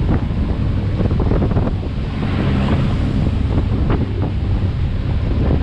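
Wind buffeting the microphone over the rumble of a pickup truck driving down a rough dirt track, with a few knocks as the truck bed jolts.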